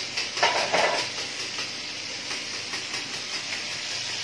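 Battered fish deep-frying in a pan of hot oil, sizzling steadily.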